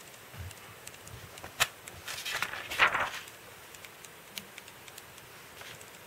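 Magazine pages being turned by hand: a sharp paper tick about one and a half seconds in, then a rustle of paper that lasts about a second, and a few faint ticks after.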